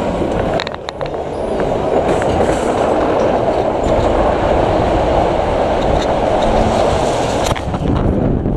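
Intamin spinning coaster car rolling along its steel track: a steady rumble with wheel clatter, and a sharper clack near the end.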